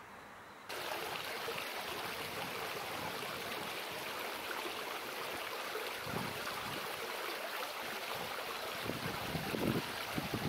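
Steady splashing of running water in a stone garden fountain, starting abruptly about a second in. Wind buffets the microphone in low thumps near the end.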